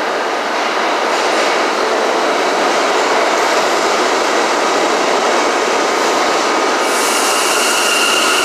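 R179 subway train pulling out of the station, its running noise building as it gets under way. About seven seconds in, more hiss and a steady high whine join in.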